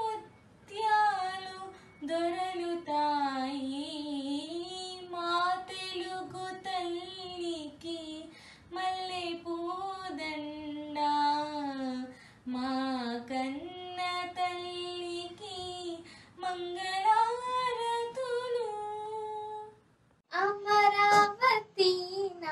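A girl singing a Telugu song solo and unaccompanied, one voice with long held, ornamented notes. The song ends about twenty seconds in, and after a short pause another girl's voice begins.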